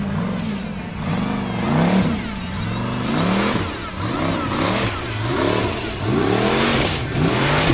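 Formula Offroad race car's engine revving hard, its pitch rising and falling over and over about once a second as the car churns across a loose dirt slope on its paddle tyres.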